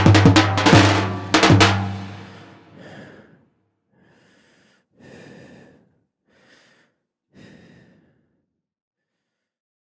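Tapan, the Macedonian double-headed bass drum, beaten in a fast, dense rhythm that ends with two hard strikes about a second and a half in and rings away. Then four or five faint, spaced-out heavy breaths.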